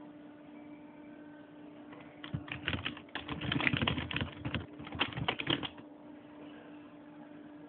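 A rapid run of light clicks and taps lasting about three and a half seconds, starting a couple of seconds in and stopping suddenly.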